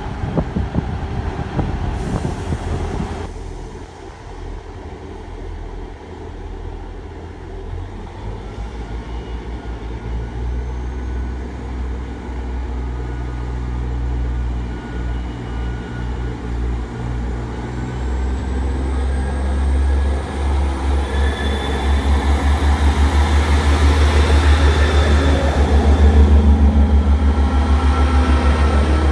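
Class 158 diesel multiple unit pulling away: the underfloor diesel engines throb deeply and grow louder over the second half as the train accelerates past, with a whine rising in pitch.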